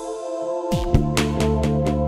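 Electronic background music: sustained synth chords over a regular beat. The bass drops out briefly at the start and comes back in under a kick drum about three quarters of a second in.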